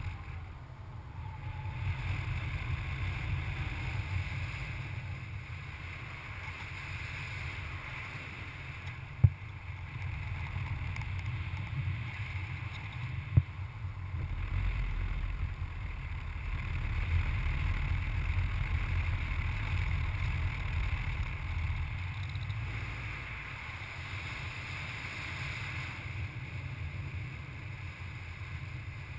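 Steady rush and low rumble of airflow buffeting the microphone of a paraglider in flight, swelling and easing a little. Two sharp clicks come about nine and thirteen seconds in.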